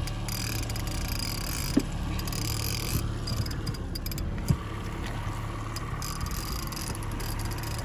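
Boat's outboard motor running steadily at low trolling speed, with two short knocks about two and four and a half seconds in.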